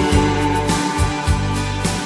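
Instrumental background music: held melody notes over a steady beat.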